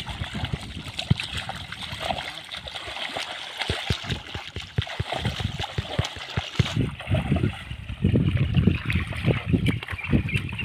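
Muddy pond water splashing and sloshing irregularly as a mosquito net is dragged through the shallows by people wading. It gets louder in the last few seconds.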